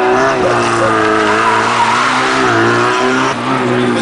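Small car's engine revving hard, its pitch rising and falling continuously as it is driven around a tight course, with tyres squealing through the turns.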